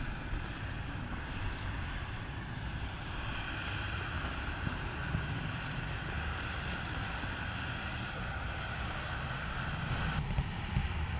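Wind buffeting the microphone in a low, steady rumble. Over it runs a fainter steady hiss that stops abruptly near the end.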